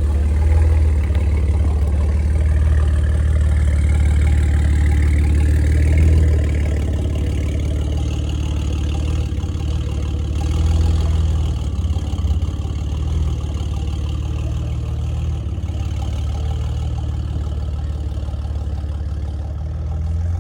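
BMW M car engine running with a steady low drone, swelling slightly a couple of times.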